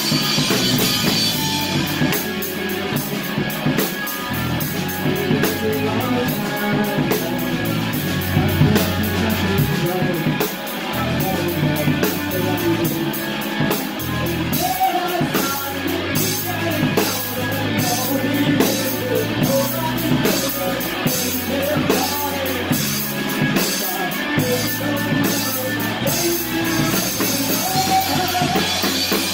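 Live rock band playing, with the drum kit loud and close-up.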